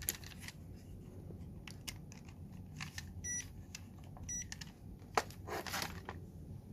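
Scattered small clicks and handling noises on a workbench, with two short electronic beeps, one a little past three seconds in and one about a second later, over a faint steady low hum.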